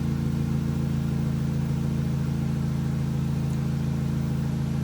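Car engine idling steadily with a low, even hum; the engine has a large vacuum leak that runs it lean and sets code P0171.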